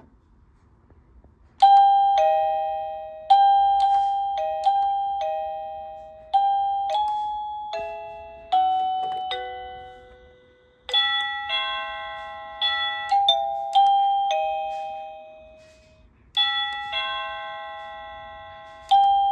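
Wireless electronic doorbell chime playing a series of different chime tunes, starting about a second and a half in. They include two-note ding-dongs and a longer falling melody, each note struck and ringing away.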